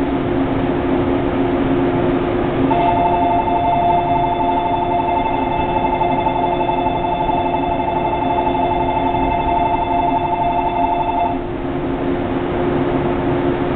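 Electronic platform departure bell ringing continuously for about nine seconds, a fluttering two-note ring like a telephone bell, starting about three seconds in and cutting off sharply, over a steady low hum.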